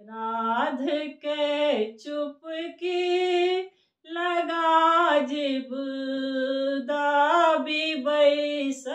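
A woman singing a traditional Maithili Bhagwati devotional song, unaccompanied, in long held and bending notes, with a short breath pause about four seconds in.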